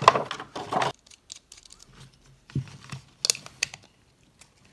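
Clear plastic packaging crinkling as a GoPro Chesty chest harness is pulled out of its tray for about the first second, then a few scattered sharp clicks as the harness's plastic buckles and mount parts are handled.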